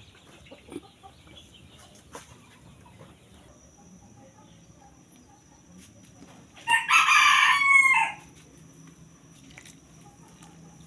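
A rooster crowing once, about seven seconds in, for a little over a second, over a faint background.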